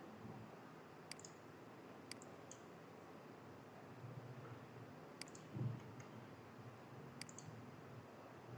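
Computer mouse clicking: about half a dozen single sharp clicks, irregularly spaced a second or more apart, over faint room hum. A soft low thump comes a little past the middle.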